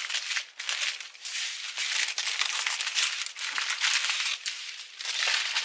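Small plastic bags of diamond-painting resin drills being handled and moved aside, the bags crinkling and the tiny drills rattling inside them.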